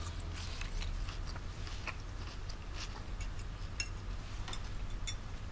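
Quiet eating sounds at a dinner table: chewing, with scattered soft clicks of a fork on a plate over a low steady room hum.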